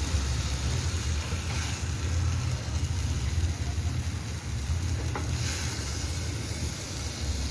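Steady low rumble with an even hiss, broken by a faint click about a second and a half in and another about five seconds in.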